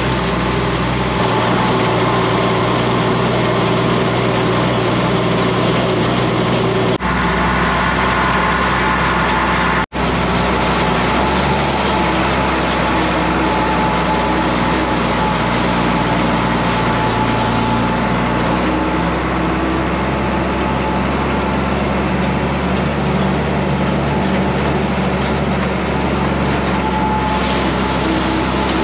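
Farm tractor engine running steadily under load, heard from inside the cab while the tractor pulls a wheel hay rake. The sound changes abruptly about seven seconds in and cuts out briefly about ten seconds in.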